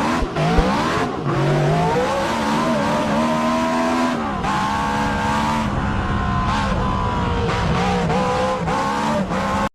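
High-revving car engines, in short clips cut one after another, the pitch rising and falling as the engines rev, then holding steady for a few seconds.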